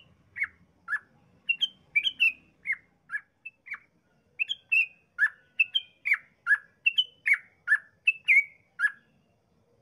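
Yellow-vented bulbul (trucukan) singing a long, fast run of short notes, two or three a second: quick downward-sliding notes alternating with higher chirps. The song stops about a second before the end.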